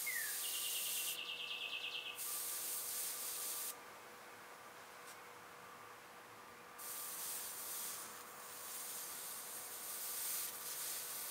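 Water hissing into steam under a small soldering iron pressed through a damp cloth onto wood, steaming out a crushed dent. The hiss stops for about three seconds midway, then starts again.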